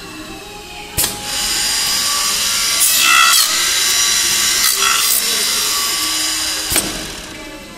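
INB8150 channel letter CNC bending machine working a metal strip: a sharp click about a second in, then a loud, high-pitched machining noise like a power tool cutting, which stops with another click near the end.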